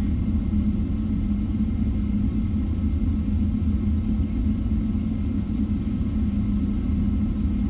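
Cabin noise of a Boeing 777-300ER rolling on the ground after landing: a steady low rumble from the engines and the wheels on the pavement, with a steady hum.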